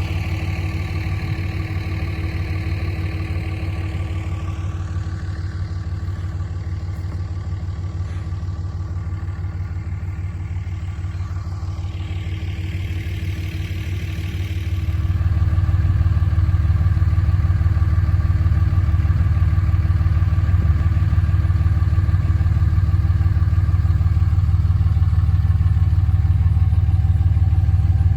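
A vehicle engine running steadily with a low hum; it gets louder about halfway through and holds there.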